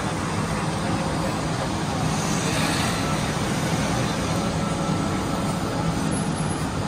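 Steady low rumble and road noise of a moving vehicle, even in level throughout.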